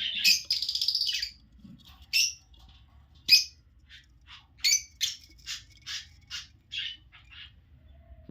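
Budgerigars chirping: a rapid chattering call at the start, two single sharp chirps, then a quick run of about eight chirps in the second half.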